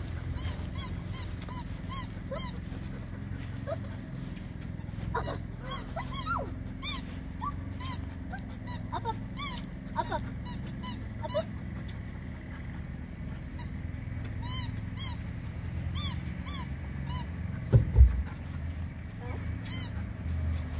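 Belgian Malinois whining in short high-pitched yelps again and again as it works the course, over a steady low hum. Near the end there is a single heavy thump.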